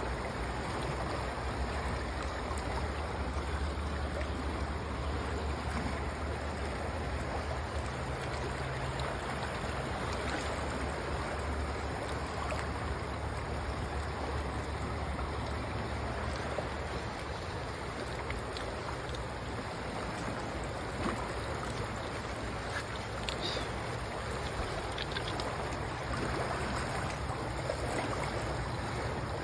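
River water flowing past bankside rocks, a steady rushing wash, with a low rumble under it for the first half or so.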